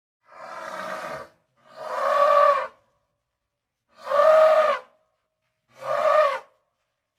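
Elephant trumpeting: four separate blasts, each about a second long with silence between, the first quieter than the rest.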